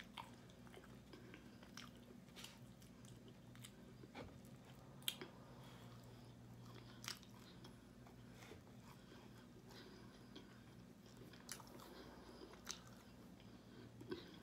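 Quiet chewing and biting of roasted chicken wings, with scattered small clicks and crunches, over a faint steady low hum.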